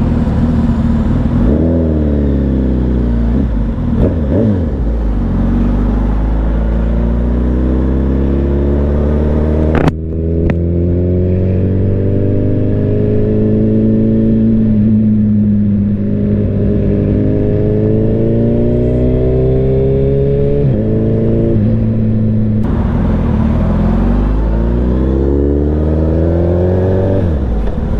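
Sport motorcycle engine with a short aftermarket muffler, heard from the rider's seat while riding in traffic: the pitch climbs and drops in steps through gear changes at the start, holds fairly steady through the middle, then rises again near the end, over wind noise. One sharp click about ten seconds in.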